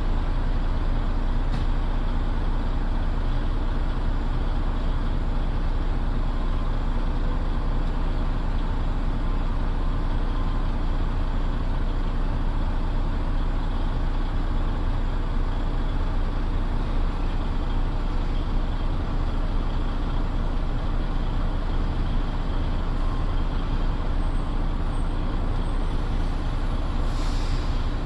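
Diesel engines of container straddle carriers running in a steady low drone, with a short hiss about a second before the end.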